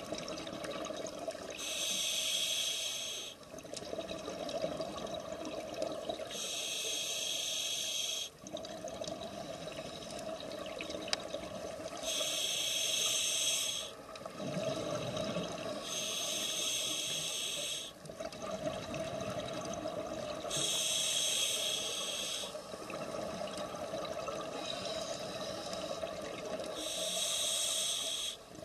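Scuba diver breathing through a regulator underwater: six hissing breaths at a steady pace, about every four to five seconds, with bubbling sounds between them.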